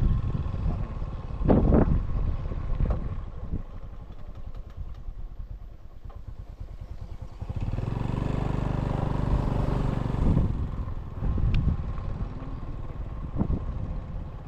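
Small motorcycle engine running, with a few short loud surges and a steadier, louder engine note from about eight to ten seconds in.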